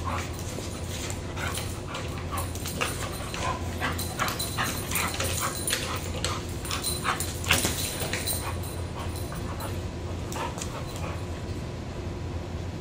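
A dog tugging on a rope toy, making a run of short, irregular dog sounds that come thickest through the middle stretch.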